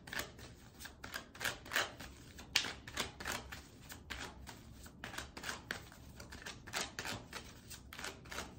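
A deck of cards being shuffled by hand: a quick, uneven run of papery clicks and slaps.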